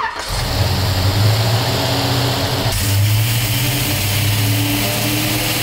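383-cubic-inch V8 fuelled by a JEGS Bandit EFI throttle body, just fired up and running at a steady idle: its first start on the newly installed fuel injection.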